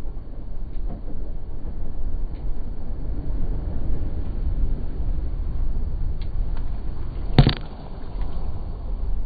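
Low, steady rumble of a car driving through deep floodwater, heard from inside the cabin. About seven seconds in there is one sharp, loud splash as a wave of spray is thrown up against the car.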